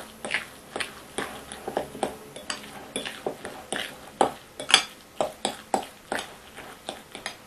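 A fork mixing fish mince and egg in a glass bowl: irregular clinks and scrapes of the fork against the glass, about three a second.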